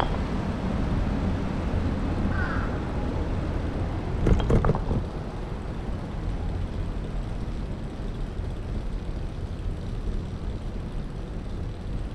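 Busy city street ambience: a steady low rumble of traffic, with a short burst of knocks and clatter about four seconds in.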